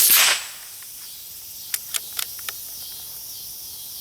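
A single pistol shot at the start, its report trailing off over about half a second, followed about two seconds in by a few short, light clicks.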